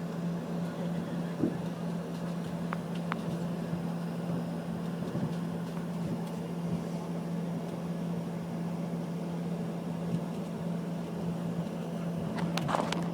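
Steady hum of an airliner cabin before takeoff, with one constant low drone over a smooth rush of engine and air-conditioning noise. There are a few faint clicks and a short rustle near the end.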